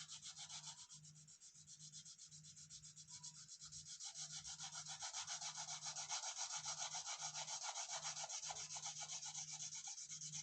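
Colouring on paper: rapid back-and-forth scratchy strokes, several a second, building up louder toward the middle.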